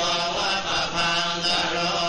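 Buddhist chanting in long, drawn-out tones, with brief breaks between the held notes.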